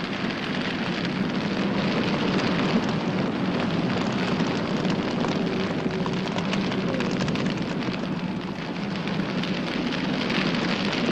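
A large fire burning steadily with dense crackling throughout.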